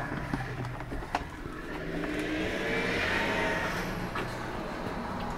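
A road vehicle passing by, its noise swelling to a peak about three seconds in and then fading. There is a single sharp click about a second in.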